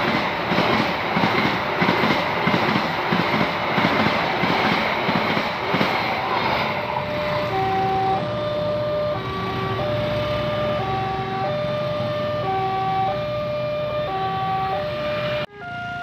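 A passenger train rushes through a railway level crossing with dense rolling noise and a rhythmic clatter for the first several seconds. Then a level-crossing warning alarm plays a repeating electronic melody of stepped tones, switching between a few fixed pitches. Near the end it cuts suddenly to another crossing's alarm with a different tone pattern.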